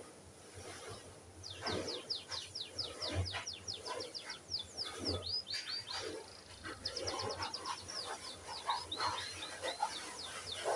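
Canary singing: quick runs of short, falling chirps and trills, starting about a second and a half in, with a short break around the middle.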